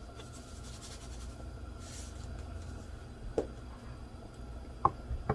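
Dry breadcrumbs being stirred and spread in a ceramic bowl: a soft, scratchy rustle over a low steady hum, with a few light taps in the second half.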